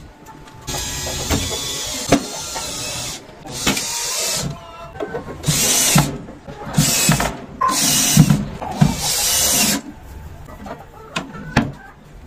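A power drill driving screws to mount a wooden nesting box: one long run of about two and a half seconds, then five shorter bursts with brief pauses between them.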